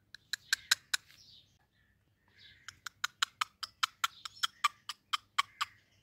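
Indian ringneck parrot making short, sharp clicks: a few at first, then after a pause a fast run of about four or five a second.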